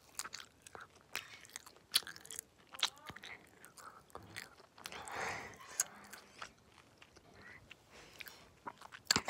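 A person chewing and crunching a crispy snack close to the microphone: irregular crackles and mouth clicks, with a longer crunch about five seconds in.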